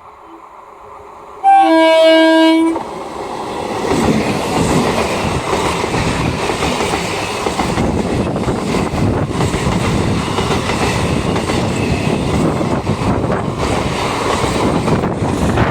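A train horn sounds one blast of a little over a second, the loudest sound here. The train then passes at speed, with a steady run of wheel-on-rail clatter.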